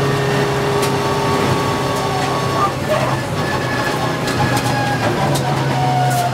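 Inside the cabin of a turbocharged four-cylinder Mitsubishi Lancer Evolution time attack car at speed: a steady drone from the engine and drivetrain with whining tones that fall slowly in pitch as the car slows from about 156 to 126 km/h, and scattered sharp ticks.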